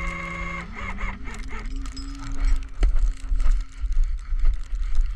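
Flatbed tow truck's winch whining steadily as it takes tension on the cable; about a second in the pitch drops and wavers, then settles to a lower steady whine as the load comes on. From about two and a half seconds, loud gusty low rumbling joins it.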